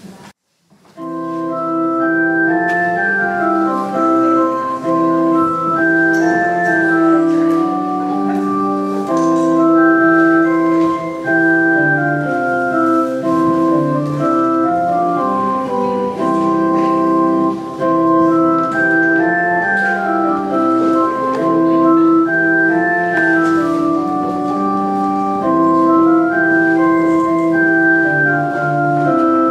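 Organ music: a slow piece in held chords with a moving melody above, starting about a second in after a moment's silence.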